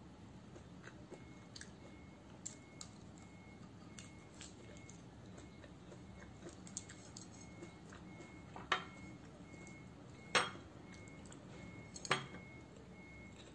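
Quiet eating by hand: soft chewing and fingers scraping rice and dried fish on a ceramic plate, with small clicks throughout. Three sharp clinks of the plate come in the second half, about a second and a half apart.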